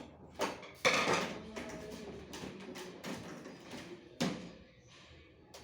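Hard objects being handled: a string of irregular clicks and knocks, the loudest about a second in with a short rustle after it, and another knock near four seconds.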